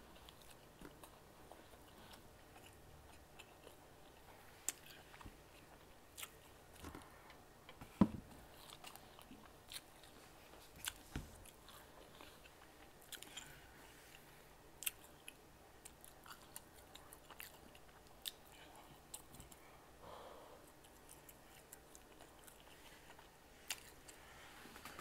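Faint mouth sounds of a person chewing and swallowing homemade ground-beef meatballs in sauce: scattered wet clicks, with one louder thump about eight seconds in.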